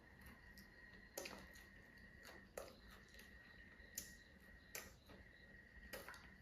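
Near silence, broken by a few faint, sharp clicks and crackles about a second apart from handling food and its packaging during a meal, over a faint steady high tone.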